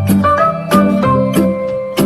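Background music: a pitched melody over a steady beat.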